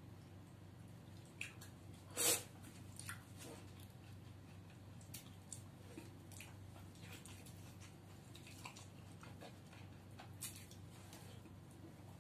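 Person eating drumsticks in sambar with the hand: scattered short wet clicks and smacks of fingers in the gravy and of chewing, the loudest about two seconds in, over a steady low hum.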